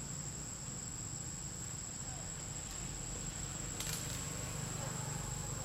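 Steady, high-pitched insect drone in the forest canopy, with one brief rustle or click about four seconds in.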